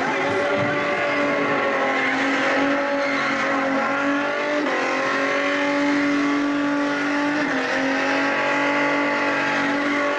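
Holden Commodore ute's engine held at high, steady revs during a burnout, with the spinning rear tyres squealing underneath. The revs shift slightly a couple of times but stay up without a break.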